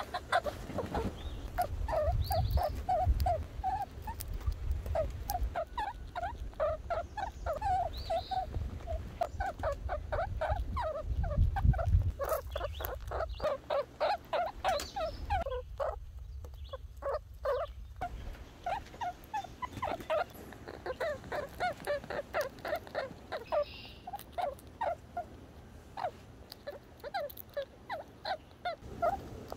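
Red squirrel chattering: long runs of short, squeaky chirps, several a second, broken by brief pauses. A low rumble lies underneath for roughly the first half.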